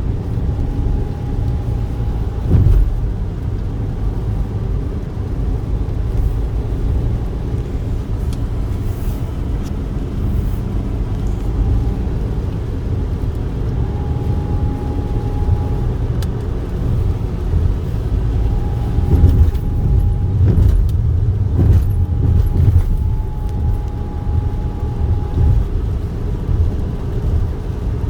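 A car driving, with a steady low road rumble and a few brief knocks from bumps. A faint thin tone comes and goes several times over it.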